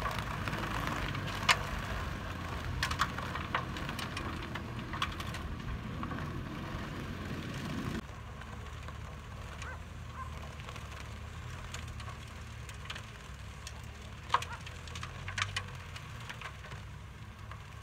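A 2.5-ton truck converted into a compost spreader, running low and steady as it spreads manure compost, with scattered sharp ticks and cracks. The rumble drops abruptly about eight seconds in.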